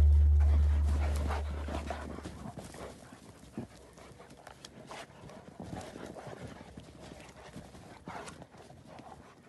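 Two dogs scuffling and playing in deep snow: irregular soft crunching and scuffing of paws in the snow, with some panting. Background music fades out over the first second or two.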